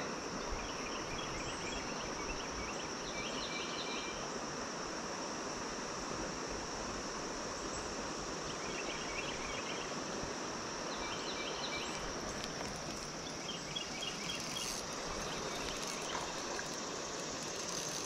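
Steady rushing of flowing creek water over rocks, under a constant high insect drone, with short chirping trills from insects every few seconds.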